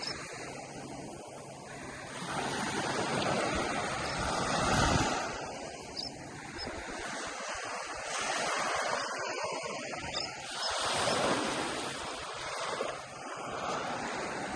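Gulf surf breaking and washing onto a sandy beach, the noise swelling and fading every few seconds as each wave comes in.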